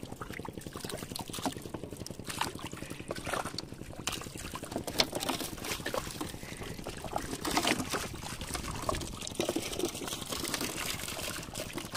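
Water splashing, trickling and dripping in shallow muddy water as people wade through it and handle the net and fish: many short, irregular splashes.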